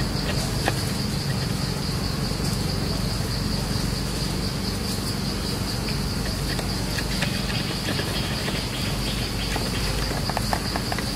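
A steady, high-pitched drone of insects calling, with no break, over a steady low rumble. Scattered light clicks and rustles come in, mostly in the second half.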